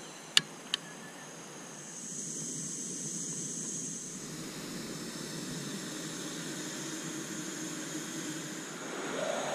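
Jetboil gas stove being lit: two sharp clicks of the igniter, then from about two seconds in the burner hisses steadily. It is burning the last of a nearly empty butane canister.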